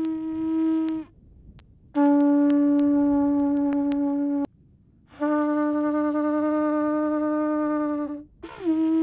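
A hand-blown horn sounding long, steady single-note blasts of two to three seconds each, with short silent breaks between them. The last blast slides down in pitch as it begins, then holds steady.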